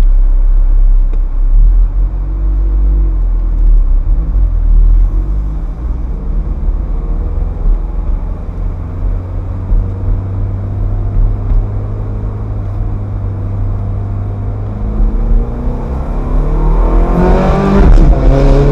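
Ferrari F430's V8 engine running at low revs while cruising, then accelerating near the end with the engine note rising in pitch.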